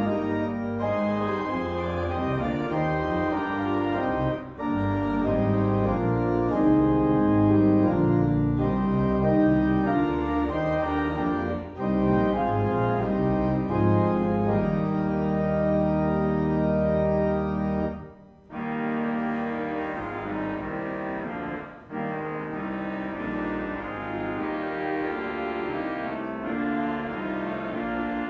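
Church organ playing sustained chords over a deep pedal bass line, with short breaks between phrases. Near-stop about two-thirds through, then the organ continues softer.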